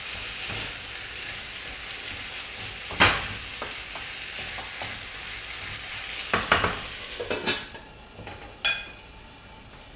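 Potatoes frying and sizzling in a pan while a spoon stirs them, with a sharp knock on the pan about three seconds in. Near the end a metal lid clatters onto the pan and the sizzle drops to a much quieter hiss.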